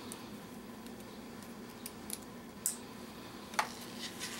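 Plastic wiring connectors being handled and pushed together, with small ticks and a sharper click about three and a half seconds in as the jumper plug latches into the crank position sensor connector. A faint steady low hum runs underneath.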